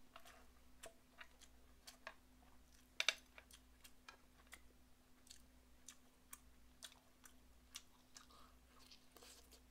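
Faint close-up chewing and lip-smacking on a mouthful of beef short-rib fried rice, a string of small wet clicks. About three seconds in there is one sharper clack of a utensil against the frying pan.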